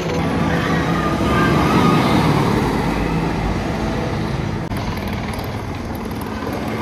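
Wicker Man wooden roller coaster train running along its track: a continuous loud rumble and rattle.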